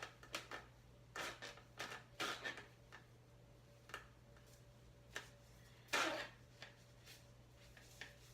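Soft scratchy strokes and small clicks of hair being parted and sectioned by hand. They come irregularly, about a dozen, with the loudest one about six seconds in.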